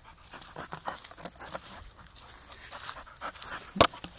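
A dog panting quickly in short, repeated breaths, with one sharp clack near the end as a plastic frisbee strikes its open mouth.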